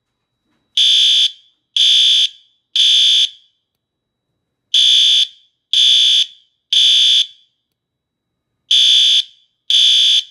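System Sensor fire alarm horn sounding the temporal-three evacuation pattern: three loud, high-pitched half-second blasts about a second apart, a pause, then three more, then the next group beginning. Each blast trails off in a short echo.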